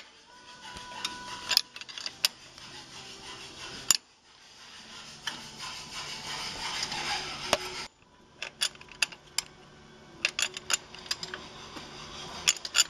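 Wrench clicking and clinking against the steel mounting nuts and bolts of a J79 turbine engine's accessory gearbox as the bolts are drawn down. The clicks come in irregular runs and get busier near the end. A steady hiss swells in the middle and cuts off suddenly.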